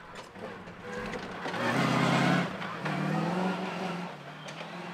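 Safari racing car's engine revving hard as the car passes at speed, loudest about two seconds in with a rush of noise, easing briefly, pulling again, then fading away.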